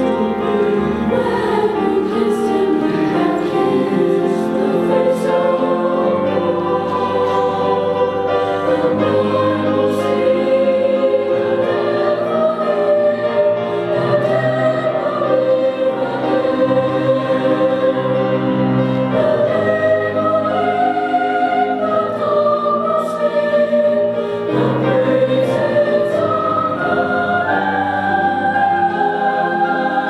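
Mixed choir of young female and male voices singing in harmony, held chords moving from one to the next; the top voice climbs higher near the end.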